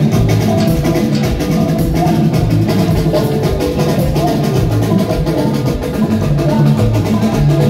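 Live band playing an instrumental groove: a drum kit keeping a steady beat over sustained low bass notes.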